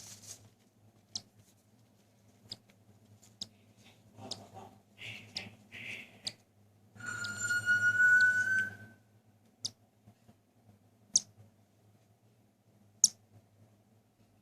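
Cockatiel chick during hand-feeding: scattered short high peeps and clicks, two brief raspy calls, then one louder drawn-out begging squeal about seven seconds in, rising slightly in pitch and lasting about two seconds.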